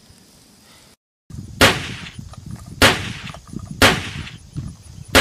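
Gunshots fired one at a time, about one a second: four sharp cracks, each with a short echoing tail. The first comes after a moment of dead silence about a second in.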